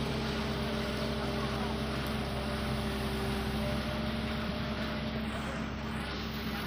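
Komatsu PC210 hydraulic excavator's diesel engine running steadily while the boom and bucket are moved.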